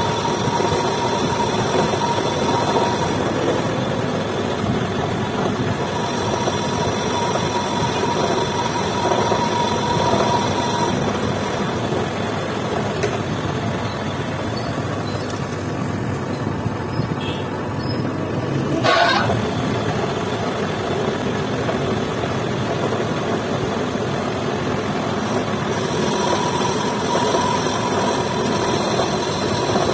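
Metal lathe running steadily, turning a steel bar while a lathe tool bit cuts it. A thin whine sits over the machine's hum; it fades in the middle and returns near the end. A short rising squeal comes about two-thirds through.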